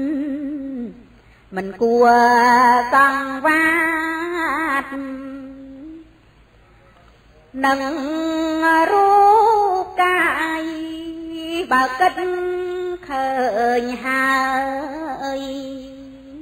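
A woman's solo voice chanting Khmer smot, Buddhist verse sung in long melismatic phrases with held, wavering notes, pausing briefly about a second in and again about six seconds in.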